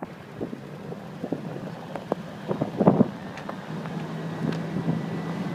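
A vehicle driving, with a steady low engine hum that grows stronger in the second half, wind noise, and scattered clicks and knocks, the loudest cluster about three seconds in.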